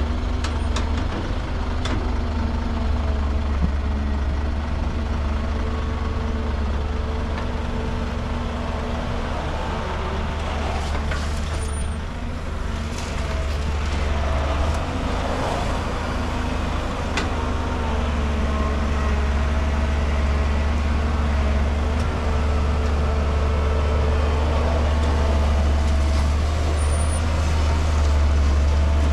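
Heavy diesel engines of a Caterpillar crawler excavator and the dump truck it is loading, running steadily with a deep, unbroken drone and a steady hum above it.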